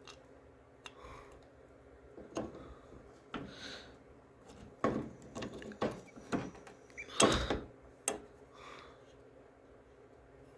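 Scattered knocks, clicks and scrapes of hand tools and metal parts as a stuck part on a lawnmower is worked at. There are about a dozen separate hits, the loudest about seven seconds in.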